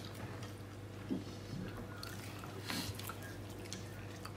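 Faint eating and table sounds: a few soft taps and short rustles of hands and food on plates, over a low steady hum.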